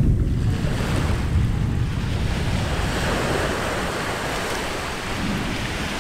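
Anak Krakatau erupting. The deep rumble of a blast just before dies away about a second in, leaving a steady rushing noise that slowly quietens.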